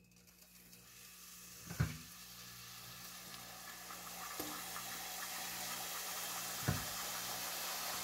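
Tortilla quarters frying in hot oil in a pot, a sizzle that builds steadily louder as more pieces go in. Two light knocks, a little under two seconds in and near the end.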